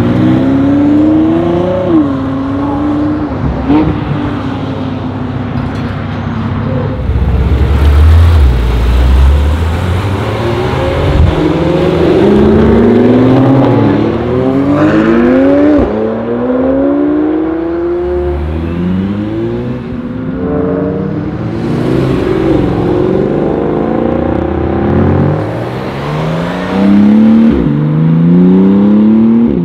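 Supercar engines accelerating hard, revving up through the gears: the pitch climbs, drops at each upshift and climbs again, over and over. The loudest runs come about eight seconds in, around the middle and near the end.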